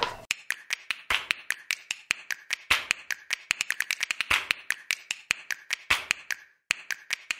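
A rapid, irregular string of sharp pops or clicks, about five a second, with a short pause near the end.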